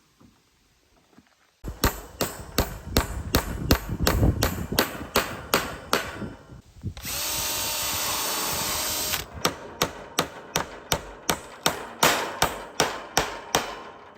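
Sharp, evenly spaced strikes at about four a second, the sound of building work on a timber frame. About seven seconds in they stop for a power tool running steadily for about two seconds, then the strikes carry on.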